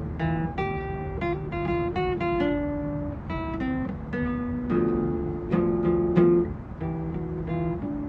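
Acoustic guitar being picked: single notes and chord tones plucked one after another, several a second, each left to ring.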